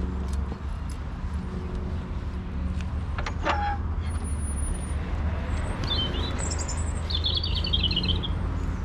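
Small birds chirping, with a fast trill near the end, over a steady low rumble. About three and a half seconds in, a short metallic clank from the wooden field gate's latch and chain.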